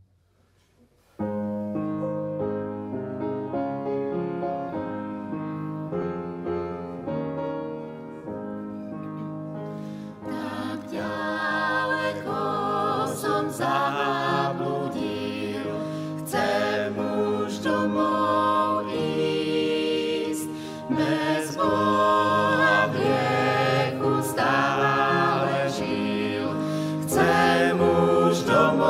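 An upright piano plays an introduction. About ten seconds in, a mixed vocal quartet of two men and two women starts singing a hymn with the piano accompanying.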